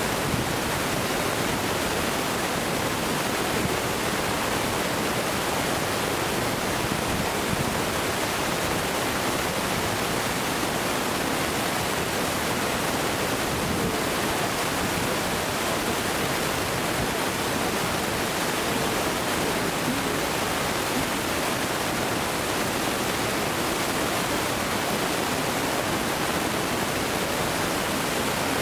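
Steady, even rushing noise with no distinct events: no bursts, bangs or voices.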